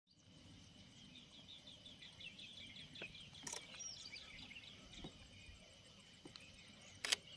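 Quiet jungle ambience: a bird gives a rapid series of chirps for the first few seconds over a steady high insect drone. A few sharp clicks are heard, the loudest near the end, a DSLR camera shutter firing.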